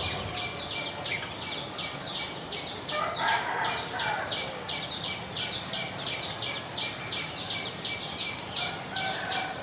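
Village ambience after rain: a steady chorus of short, high, repeated chirps, about three a second, with a lower, louder animal call, likely a bird, about three seconds in.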